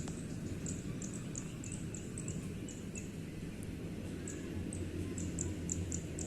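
Short, very high chirps repeating irregularly, about two to three a second, from a small animal calling, over a steady low rumble.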